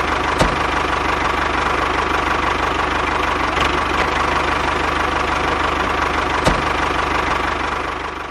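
Tractor engine running steadily with a fast, even low chug, fading out near the end.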